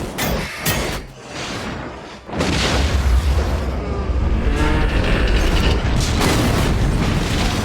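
Octuptarra tri-droid destruction sound effect: sharp metallic clicks and clatter, then after about two seconds a loud, deep rumble that holds for about five seconds before cutting off.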